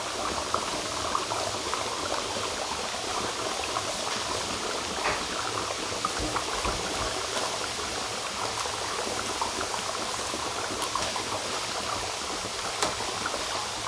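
Dry ice bubbling in water inside plastic cups: a steady bubbling with many small scattered pops.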